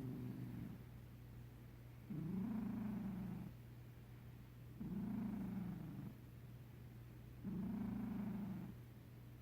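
A sleeping cat purr-snoring: a low purring snore on each breath, three full breaths plus the end of one at the start, each lasting a little over a second with quieter pauses between.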